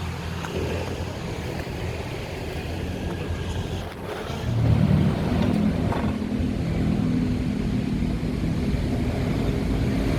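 Daikin RR140DXY1A4 air conditioner outdoor unit running with a steady low hum. About four seconds in, the sound dips briefly and then gives way to a louder hum with several steady tones, where the unit's shutdown begins.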